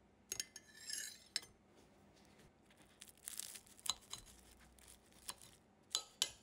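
Light clinks of cutlery against dishes: a handful of sharp taps spread out, with two brief crisp scrapes between them.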